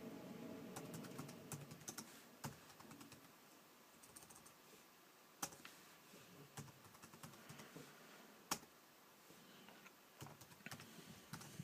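Faint, irregular typing on a computer keyboard: scattered keystrokes with short pauses between runs of keys.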